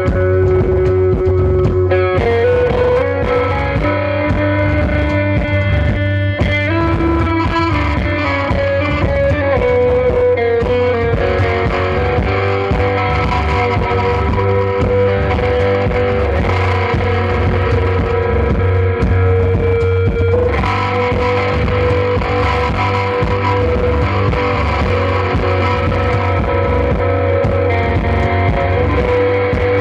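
Live rock band playing an instrumental passage: distorted electric guitar with effects over a steady bass line, held notes shifting pitch every few seconds.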